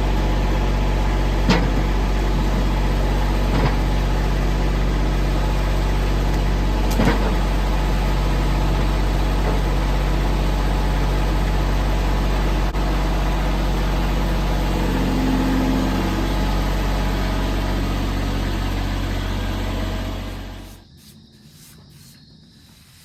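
Engine of a home-built bandsaw sawmill (18 horsepower) running steadily while the band blade makes the first leveling cut through a white oak log, with a few light knocks. The engine winds down and stops about 20 seconds in.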